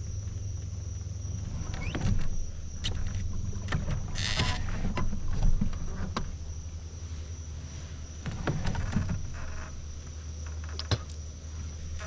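Knocks and rustles of a rod, spinning reel and small boat being handled while fishing, with a short hiss about four seconds in and another near nine seconds, over a steady high insect drone and a low rumble.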